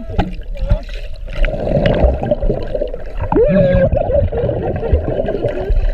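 Gurgling and bubbling water heard through a camera held underwater, with low thumps and a brief muffled, voice-like glide about three and a half seconds in.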